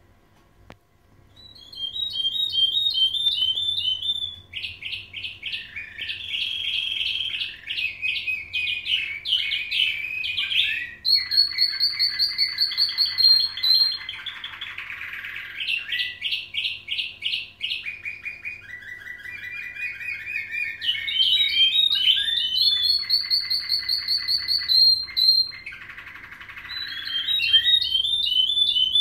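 Domestic canaries singing a nightingale-type song (bülbül ötümlü): long, varied runs of fast trills and rapidly repeated notes that start about a second and a half in and carry on without a break.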